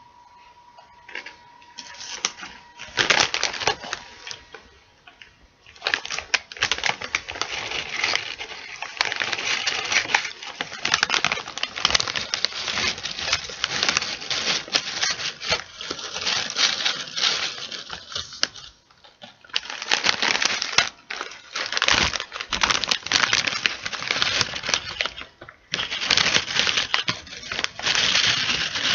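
A crisp chip bag being crinkled and handled close to the microphone: a dense, crackly rustle made of many tiny clicks, with a few brief pauses.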